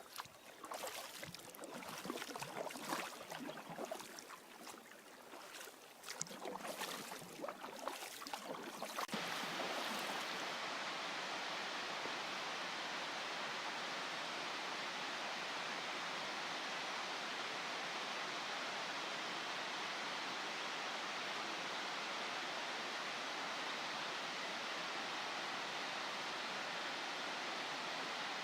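Irregular knocks and splashes for about nine seconds, then a steady, even rushing of water, as from the Tallowa Dam spillway, for the rest of the time.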